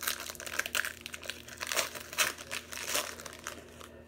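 Trading-card pack's foil wrapper crinkling as it is torn open and handled; a dense crackling that stops shortly before the end.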